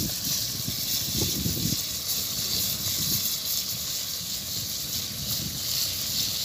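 Lambari and fish pieces frying in a little oil in an aluminium pan over a wood fire: a steady sizzle, with wind rumbling on the microphone.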